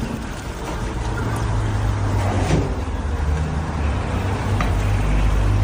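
A steady low mechanical hum with a few light clicks and knocks over it.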